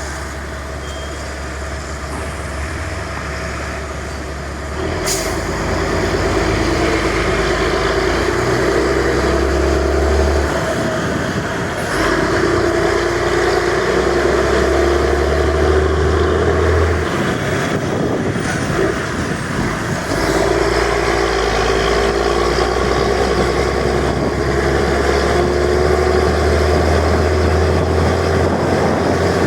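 Volvo B10M bus's six-cylinder diesel engine running. About five seconds in it revs up and gets louder, then holds at raised revs, dropping back briefly twice.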